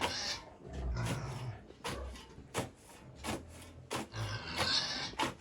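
Pigs grunting in their pens, with irregular knocks and scraping against the wooden pen.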